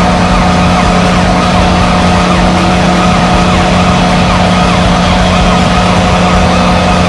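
Washington Capitals' goal horn sounding one long, steady blast, unbroken throughout.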